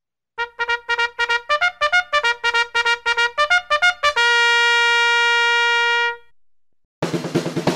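Intro music: a trumpet fanfare of quick repeated notes, ending on one long held note that fades away. A busier music track with drums starts near the end.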